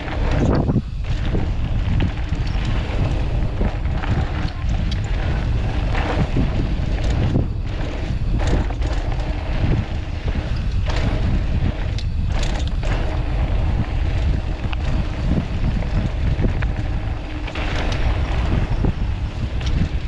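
Wind buffeting the microphone of a camera on a mountain bike riding a dirt trail, a steady heavy rumble with many short knocks and rattles from the bike over rough ground.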